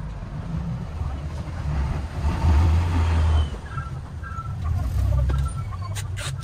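Motor-vehicle traffic in a narrow street: a low engine rumble that swells about two and a half seconds in and again around five seconds, as vehicles pass close by.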